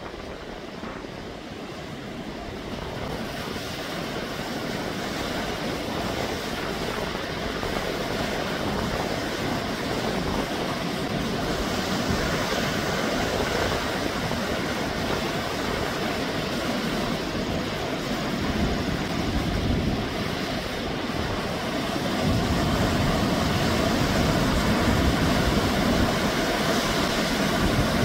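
Heavy typhoon swell breaking and washing over coastal rocks: a continuous rushing wash of surf that grows steadily louder, with a further rise about three-quarters of the way through.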